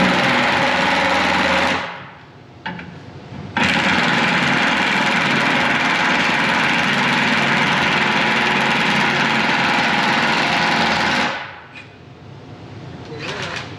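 A power tool running hard in two long runs with a steady pitch: a short run at the start, a pause, then a run of about eight seconds that stops near the end.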